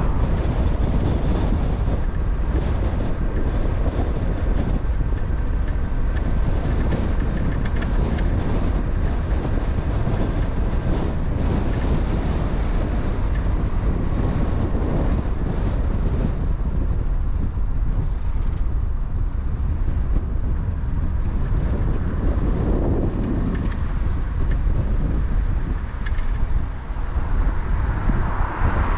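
Car driving along the road: a steady low rumble of road and wind noise, swelling gently a few times.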